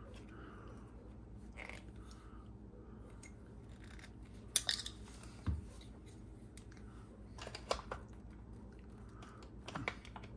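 Hand tools and small metal parts clicking and scraping as an RC truck's brushless motor is tightened into place. A few sharp clicks come in short clusters, about halfway through, again later and near the end, one with a dull knock, over a low steady hum.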